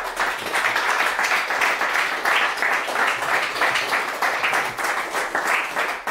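Audience applauding: many people clapping together in a steady, dense patter that starts suddenly and keeps going.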